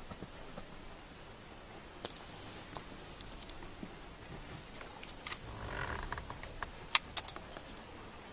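Faint handling noise from a handheld camera moving around a truck cab: a few sharp clicks, the loudest late on, and a brief rustle about six seconds in.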